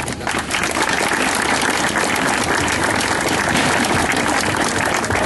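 Audience applauding steadily: a dense patter of many hands clapping that starts suddenly and carries on at an even level.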